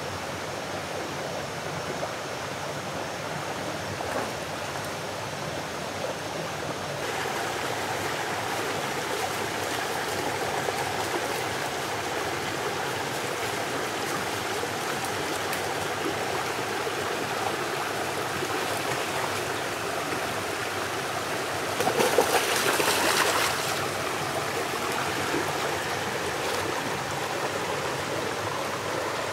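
Spring-fed stream water flowing and trickling steadily, growing a little fuller about seven seconds in. A brief louder rush of noise lasts about a second and a half, roughly three-quarters of the way through.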